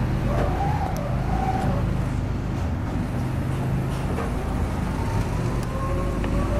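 A steady low mechanical hum from a running machine, engine-like, with a faint higher whine over it.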